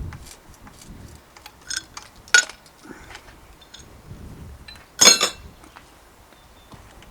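Metal tools and bicycle parts clinking and knocking as they are handled, with a sharp clink about two and a half seconds in and a louder, ringing clank about five seconds in.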